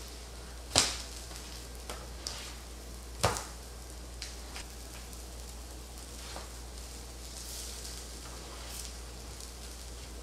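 Spatula knocking and tapping on an electric griddle as slices of Spam are turned: two sharp knocks in the first few seconds, then lighter taps, over faint sizzling of the frying meat.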